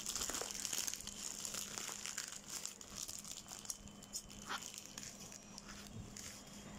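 Plastic bubble wrap and parcel packaging crinkling and crackling as hands pull at it, in scattered crackles that are loudest in the first second and grow fainter.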